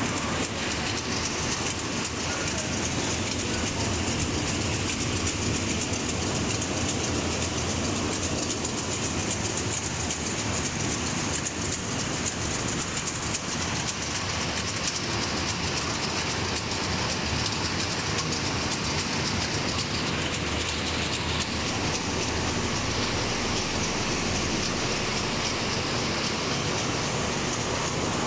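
Steady mechanical clatter and whir of a French-fries production line's stainless-steel mesh belt conveyors running, with potato strips tumbling from belt to belt.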